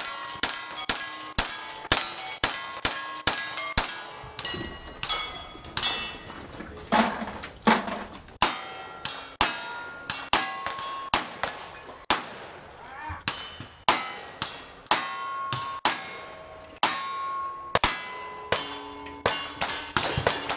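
A string of gunshots, each followed by the clang of a struck steel target ringing at its own pitch. The shots come about two a second for the first four seconds, then at more spaced intervals.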